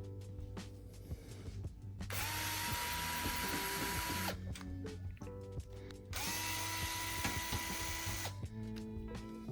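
Electric screwdriver driving screws in two runs of about two seconds each. Each run spins up quickly to a steady whine and then cuts off.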